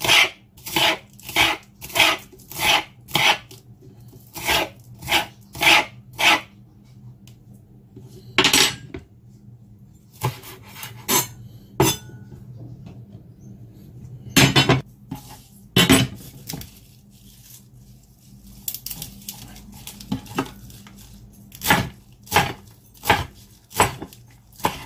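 A fork scraped again and again along spring onion stalks on a cutting board, shredding them into fine strands, about three strokes a second. Later a chef's knife cuts through the shreds, and near the end it chops coriander on the board in steady strokes.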